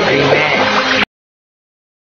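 Background music with a busy electronic beat that cuts off abruptly about a second in, followed by silence.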